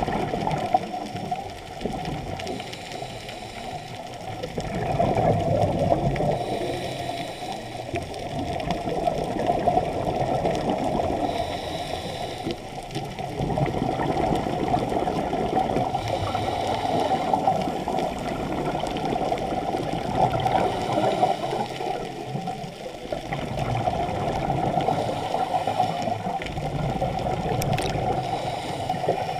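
Scuba regulator breathing heard underwater: exhaled bubbles burst out in rumbling, gurgling swells every few seconds, with quieter stretches between breaths.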